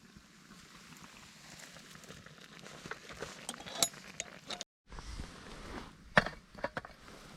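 Scattered light knocks and clicks over a quiet background, with the sharpest knock about six seconds in.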